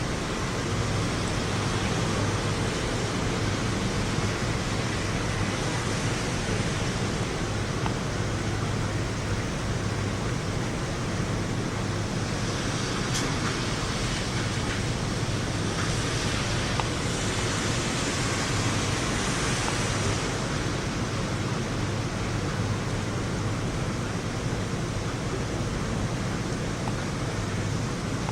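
Steady hiss of heavy thunderstorm rain, a little brighter for several seconds around the middle, with one sharp click.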